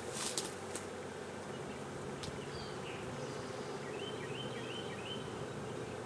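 A swarm of honeybees buzzing steadily en masse, with a few sharp clicks in the first second and another about two seconds in, and short high chirps around four seconds in.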